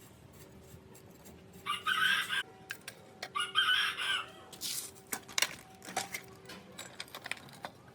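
A rooster crowing, two calls about a second and a half apart, with scattered sharp clicks and taps around them.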